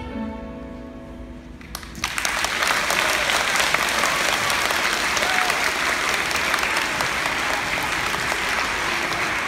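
The last held note of the song fades out. About two seconds in, an audience of schoolchildren breaks into applause, which carries on.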